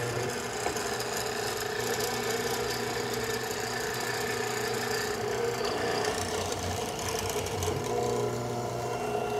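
Benchtop hollow-chisel mortiser running steadily, its motor humming as the square chisel and auger bit bore a quarter-inch square mortise into a wooden frame rail.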